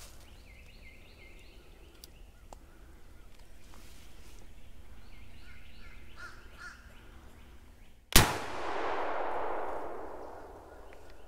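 A single pump-action shotgun shot about eight seconds in, followed by a long echo that dies away through the pine woods over about three seconds.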